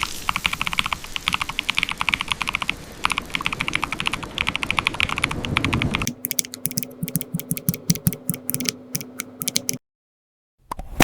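Typing on a computer keyboard: fast, continuous keystrokes for about six seconds. Then the sound changes abruptly to sparser, crisper key clicks over a faint steady hum, which stops dead about ten seconds in. One or two single clicks follow near the end.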